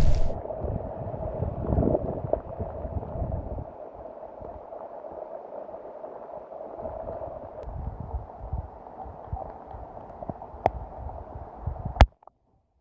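Muffled storm wind gusting in low rumbles, with a faint steady tone underneath. Two sharp clicks come near the end, and then the sound cuts off.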